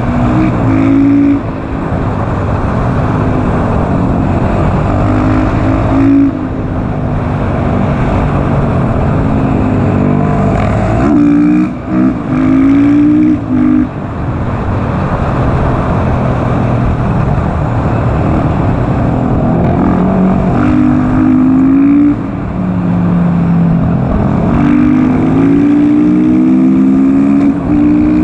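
KTM SMC R supermoto's single-cylinder engine pulling hard through the gears: the revs climb and then drop back at each gear change, several times over, with a steady rush of wind noise.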